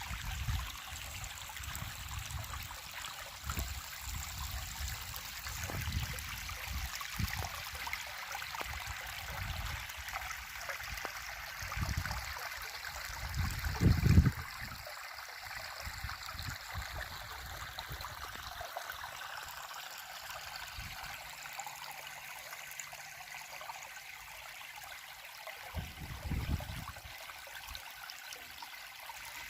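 River water running steadily, a continuous rushing, trickling flow. Low rumbles come through now and then, the loudest about 14 seconds in.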